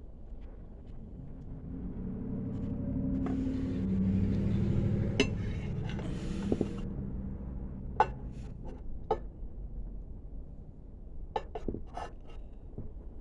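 Sharp clicks and light clinks from handling the leaders and the PVC tube, several of them in the second half. Under them a low engine hum swells and fades in the first half.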